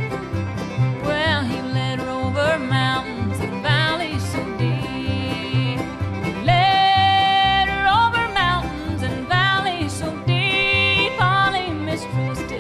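Bluegrass band playing an instrumental break without singing: banjo and fiddle lead lines over guitar and a steady, evenly repeating bass.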